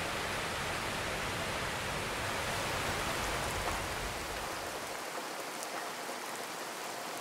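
A steady, even rushing hiss of noise, with the deepest rumble in it dropping away about five seconds in and a few faint ticks near the end.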